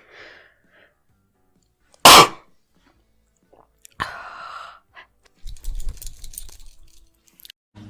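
A woman sneezes once, loudly and sharply, about two seconds in. A softer breathy voice sound follows a couple of seconds later, then a few light clicks.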